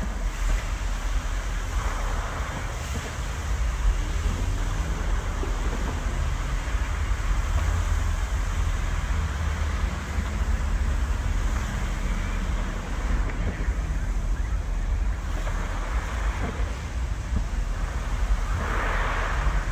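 Large multi-jet fountain spraying and splashing, a steady rushing water noise that swells now and then, with wind rumbling on the microphone.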